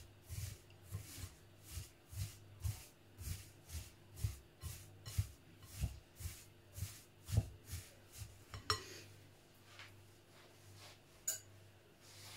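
A spatula stirring sticky chocolate-coated puffed rice in a glass bowl, a soft scrape-and-rustle about twice a second. The stirring stops about two-thirds of the way through, followed by a couple of light clicks.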